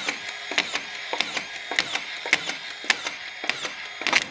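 DeWalt DCF620 18V brushless collated drywall screwdriver running steadily and driving screws one after another through drywall into timber. A sharp click from the collated screw strip comes with each screw, a little under two a second.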